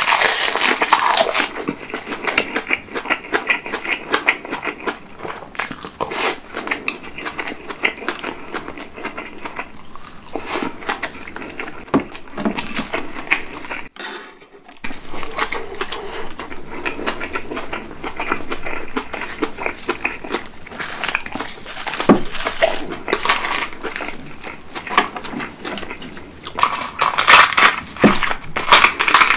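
Close-miked chewing of a mouthful of rice wrapped in roasted seaweed, with cabbage kimchi: wet crunching and dense crackling mouth sounds. These are loudest at the start and again near the end, with a brief dropout about halfway.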